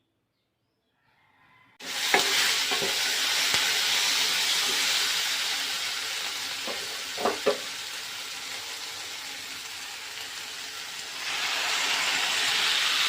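Food frying in hot oil in a pan: a loud sizzle that starts suddenly about two seconds in, with a few knocks of stirring. The sizzle eases off in the middle and swells again near the end.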